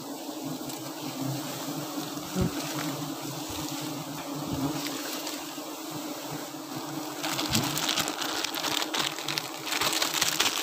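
Honeybees humming steadily around their wild comb. From about seven seconds in, dry grass and twigs crackle and rustle as the undergrowth is pushed aside.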